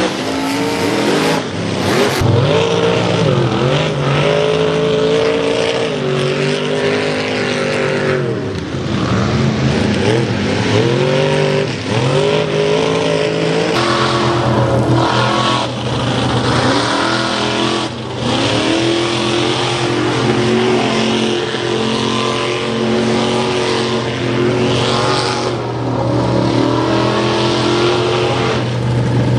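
Mega mud trucks' engines revving hard as they churn through a deep mud bog, the engine pitch dropping and climbing again and again with the throttle, over a thick hiss of spinning tyres and flying mud.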